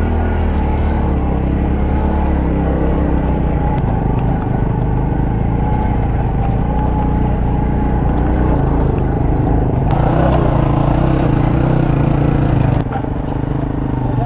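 Motorcycle engine running steadily while riding a rough dirt track, heard from the rider's own bike. Its pitch shifts about ten seconds in, and it drops a little quieter near the end.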